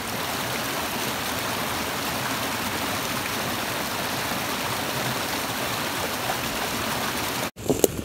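Fast-flowing creek water rushing steadily over a shallow bed. Near the end the rush cuts off abruptly, followed by a few sharp clicks.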